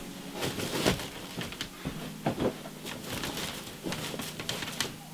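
Hurried rustling of fabric and irregular bumps and knocks as a Santa costume is stuffed into a wicker basket.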